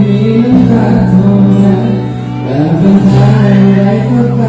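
Male vocalist singing live into a microphone over amplified backing music, with a short break between phrases about two seconds in.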